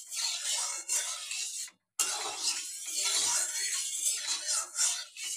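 Metal spatula scraping and stirring round an aluminium kadai with a little oil in it, a rough hissing scrape with a few clinks of metal on metal. It stops for a moment about two seconds in, then goes on.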